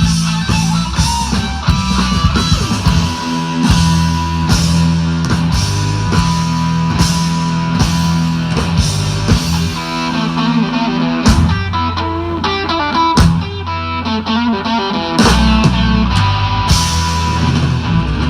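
Live blues-rock band playing an instrumental passage: electric guitar and bass over a drum kit, with a few sharp band stops near the end of the song.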